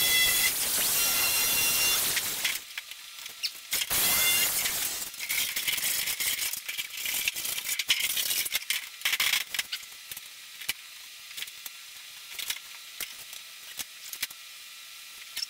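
A corded power tool whines as it cuts through the lip of a metal fender panel for about the first two and a half seconds, and again briefly around four seconds in. After that the loose sheet-metal panel clanks and rattles in short knocks as it is handled and set against the car's front end.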